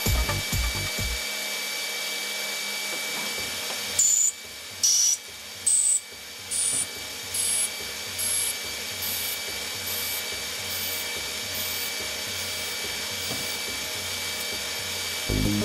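TRAUB TNL18 sliding-headstock CNC lathe cutting a thread on a spinning bar in repeated passes: a steady machine hum with a constant high tone, and from about four seconds in a short high-pitched squeal on each pass, roughly one a second, mostly climbing higher in pitch each time. Background music fades out in the first second and comes back at the very end.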